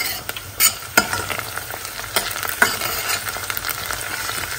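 Diced onion sizzling in oil in a stainless steel pot while a metal spoon stirs it, scraping and clicking against the pot several times. The onion is frying toward golden.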